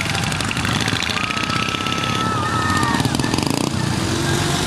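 Twin-cylinder flathead engines of racing lawnmowers running hard, with a fast, even pulsing exhaust note.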